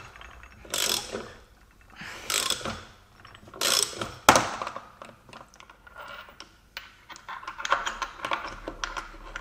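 Socket ratchet worked in repeated strokes, its pawl clicking in a burst about every second and a half as it turns the forcing screw of a bearing puller pressing a side bearing off a differential gear carrier. A single sharp metallic clack comes about four seconds in, followed by quicker, lighter clicking.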